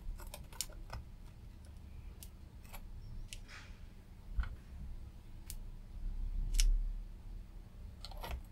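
Scattered light clicks and taps of pliers on a circuit board and its surface-mount inductors as they are gripped and pulled off over a solder pot, over a low steady hum.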